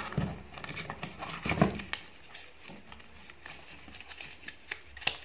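Handling noise as plastic earbuds are lifted out of a cardboard box insert: scattered light clicks, taps and rustles, with a couple of louder knocks.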